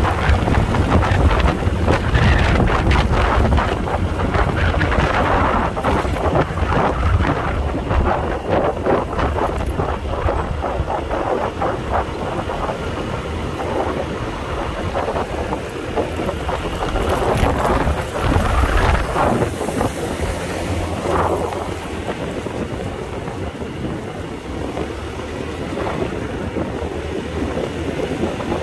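Wind buffeting the microphone on a moving motor scooter, a steady noisy rush with a heavy low rumble, over the scooter's running and road noise.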